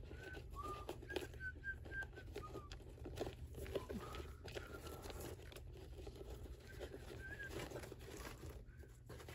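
Quiet rustling and light clicks of shoelaces being pulled out through the eyelets of leather dress shoes. A series of short, faint whistled notes runs through the first few seconds, with a few more later on.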